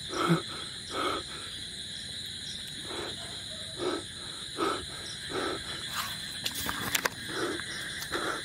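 Footsteps on dry forest ground at a walking pace, about one step every 0.7 seconds, over a steady high drone of night insects.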